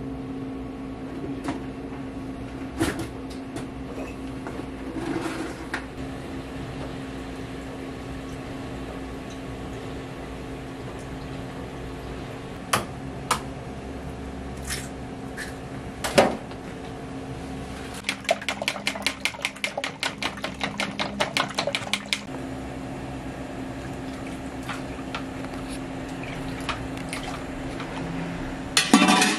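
Restaurant kitchen work sounds: a steady machine hum under scattered clinks and knocks of dishes and utensils. About two-thirds through comes a few seconds of quick, even tapping, and there is a louder clatter near the end.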